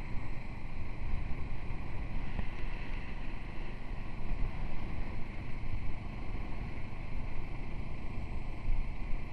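Wind rushing and buffeting the microphone of a rider on a moving Kawasaki Z650RS motorcycle, over the low drone of the bike and road.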